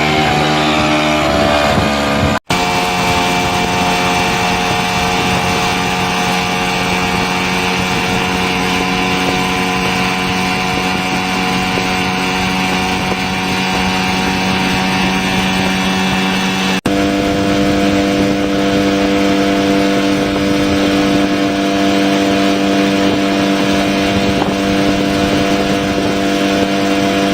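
Two-stroke speedboat engine, converted to run on LPG, running at a steady speed. The sound is three clips cut together: the engine note changes abruptly at a cut about two seconds in and again about two-thirds of the way through.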